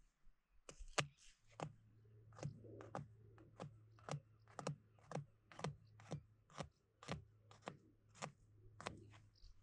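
A knife chopping food on a cutting board in steady strokes, about two a second.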